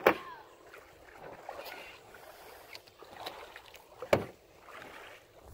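Shallow water lapping and sloshing around a person wading, with a short sharp splash or knock right at the start and another about four seconds in.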